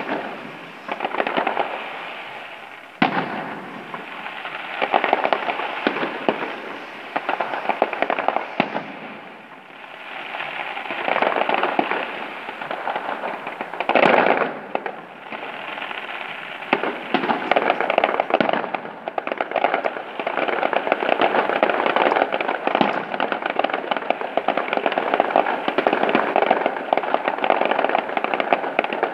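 Fireworks display: a steady run of crackling bursts with sharp bangs about three seconds in and near the middle, the second the loudest. The crackling grows thicker and louder toward the end.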